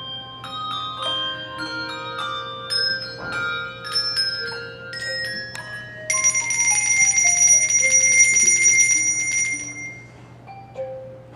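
Handbell choir ringing a carol, many struck bells overlapping and ringing on. About six seconds in, a loud shimmering sustained ring sets in over a descending run of notes. It dies away after about four seconds.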